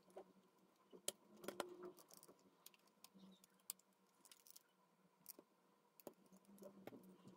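Faint scattered clicks and light taps as fingers handle the Sony WM-F15 Walkman's plastic case and circuit board while fitting them back together. There is a small cluster about a second and a half in and single clicks later on, over a faint steady hum.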